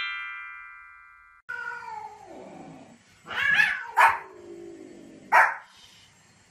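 A bright chime rings out and fades away. Then come long, wavering animal calls that fall in pitch, and a small white fluffy dog barks sharply a few times near the middle and again past the five-second mark.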